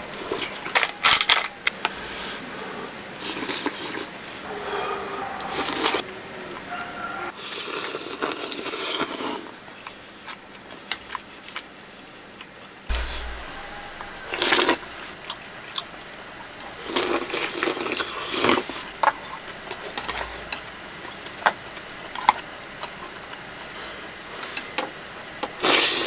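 Intermittent clicks, knocks and scrapes of a spoon and cookware being handled while noodle soup is served and eaten, some short sharp and some longer rustling.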